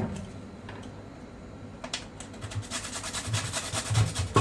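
Fast, rhythmic scraping strokes of a kitchen utensil, several a second, starting about two and a half seconds in.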